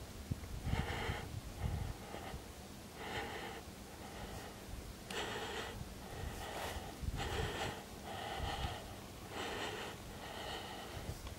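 A person breathing hard while walking uphill, short rushing breaths in and out at about one a second.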